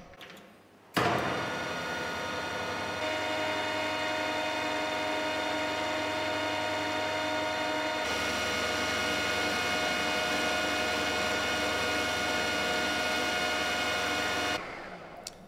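Metal lathe starting up about a second in and running steadily with a whine of several steady tones while a carbide-tipped tool turns down a steel bar. It gets louder in two steps, about three and eight seconds in, then runs down and stops near the end.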